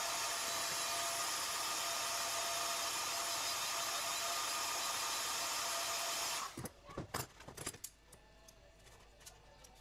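Electric heat gun running, a steady hiss of blowing air with a faint whine, as it heats a piece of PVC pipe until it goes soft. It cuts off about six and a half seconds in, followed by a handful of sharp clicks and snips as scissors start cutting the softened pipe.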